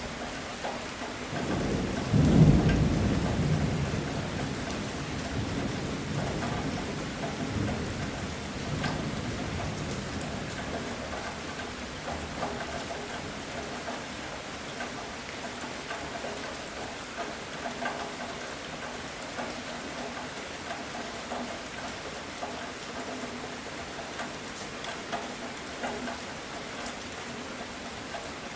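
Heavy rain falling steadily, with one thunderclap about two seconds in that breaks sharply and then rolls away, rumbling down over the next several seconds.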